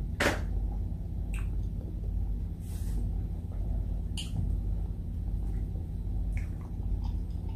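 Eating sounds close to the microphone: chewing and small wet mouth clicks, with a few sharp clicks and a brief rustle, over a steady low background hum. A glass of water is picked up and sipped from in the second half.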